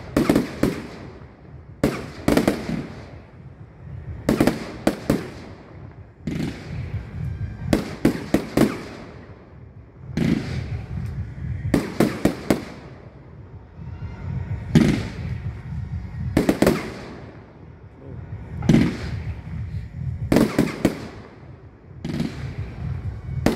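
Aerial fireworks display: shells going off in quick clusters of sharp bangs about every two seconds, each cluster fading away before the next.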